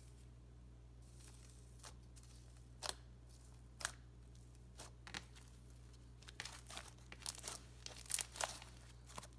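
Green clear-glue slime with gold leaf being pressed, poked and then stretched by hand, giving faint sticky crackles and clicks. These come now and then at first, then more often and louder in the last few seconds as the slime is pulled and folded.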